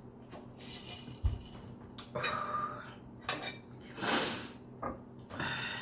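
Cutlery scraping and clinking on a plate in several short, separate strokes.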